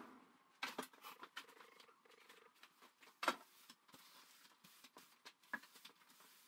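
Faint scratchy brushing of a broom on the workshop floor, with scattered light taps and one sharper knock about three seconds in.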